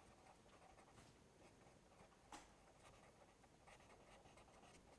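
Faint scratching of a pen writing a word on paper, with one light tick a little over two seconds in.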